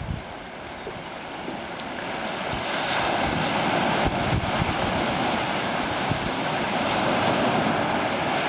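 Ocean surf breaking and washing up the sand, swelling about two seconds in and staying loud.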